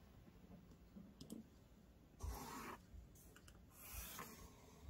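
Faint pencil scratching on paper as a line is drawn along a clear plastic ruler, with a few light clicks and a short scrape as the ruler is set in place.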